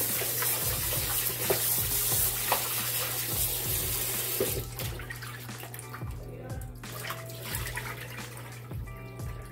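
Kitchen tap running into a plastic bowl of oxtail pieces being rinsed by hand, shut off suddenly about halfway through. After that, quieter splashing and sloshing as the meat is swished around in the bowl of water.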